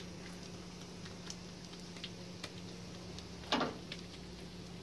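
Oiled msemen dough being patted and spread flat by hand on a granite countertop: a few soft ticks and one louder wet slap about three and a half seconds in, over a low steady hum.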